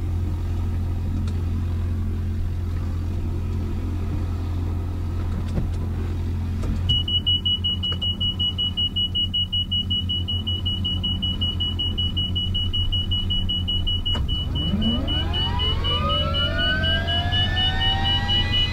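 Bell 206 JetRanger starting up, heard inside the cockpit. A steady low hum runs first. About seven seconds in, a high steady tone with rapid ticking begins. The ticking stops about halfway through, and then the Allison 250 turbine's whine climbs steeply in pitch, several tones rising together as it spools up.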